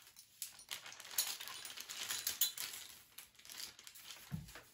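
Small pieces of old metal hardware, brass handles and little beady bits, clinking and rattling together as a hand stirs through them in a small basket. A soft low thump comes near the end.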